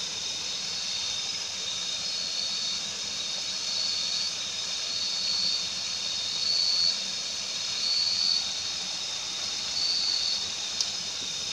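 Night-time riverside outdoor ambience: a steady high hiss with thin unchanging tones, like a night insect chorus, and a short higher call repeating about every second and a half. One sharp click comes near the end.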